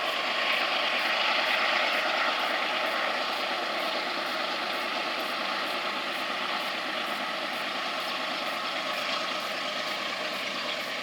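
Diesel locomotives of a freight train running, a steady engine and rolling noise that swells slightly in the first couple of seconds and then holds.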